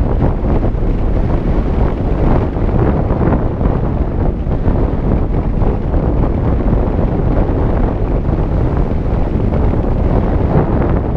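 Wind noise from the airflow of paraglider flight rushing over a camera microphone: a loud, steady, rumbling buffet with no letup.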